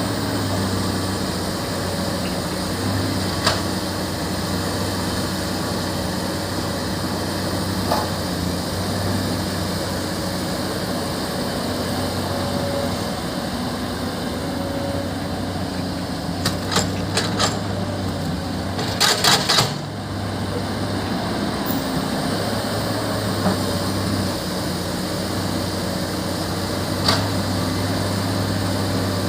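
Diesel engine of heavy construction machinery running steadily, with a few sharp knocks now and then and a quick cluster of them around the middle.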